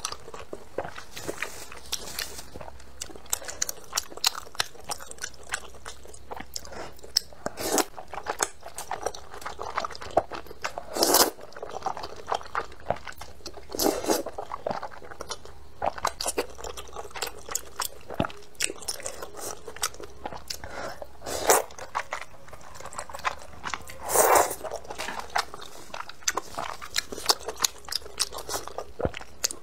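Close-miked eating sounds: a person chewing thick noodles with a steady run of small wet mouth clicks, and slurping them up loudly a few times.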